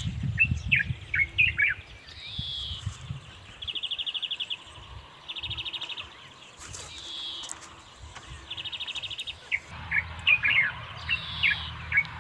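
Small songbirds chirping and trilling in a repeating pattern: quick runs of short falling chirps, rapid buzzy trills and high falling whistles, every few seconds. Low crunching of footsteps on a dirt path comes in near the start and again near the end.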